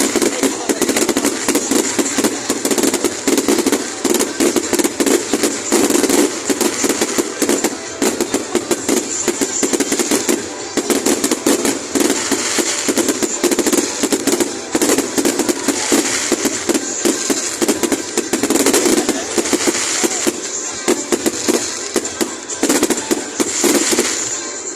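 Fireworks display going off in a dense, unbroken run of bangs and crackles, thinning out near the end.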